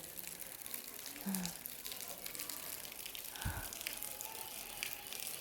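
Small waterfall splashing steadily into a shallow pool, running light after a dry spell, with a brief low thump about three and a half seconds in.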